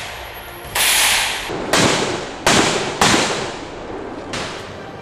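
Gunfire from a rifle in a jungle shootout scene: about five single shots at irregular intervals, each followed by a long echoing tail.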